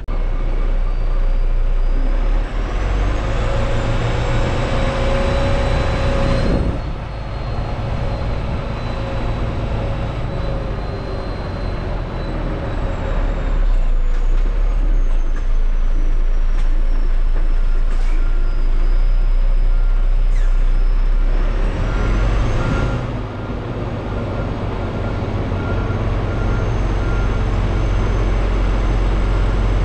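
Semi-truck's diesel engine running steadily. The sound eases off briefly twice, about six and twenty-three seconds in.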